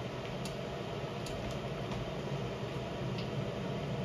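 Steady mechanical room hum with a few faint clicks scattered through it.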